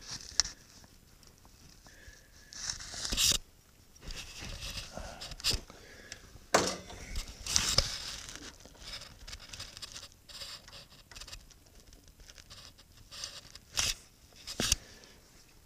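Steel gears and parts of a lathe's reverse gear train being handled and fitted by hand: irregular metal clicks, clinks and short scrapes, a few sharper clicks standing out above the rest.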